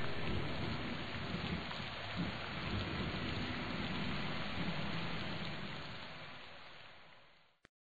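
Steady rainfall with low rumbling thunder, fading out gradually over the last few seconds to silence, with one faint click just after it stops.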